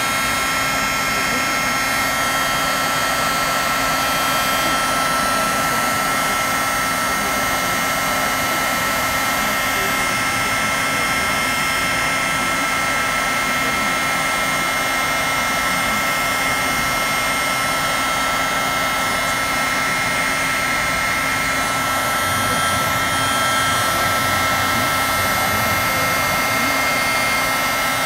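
Craft heat gun running steadily, a rush of blown air with a couple of steady high whistling tones, as it heats embossing powder to melt it.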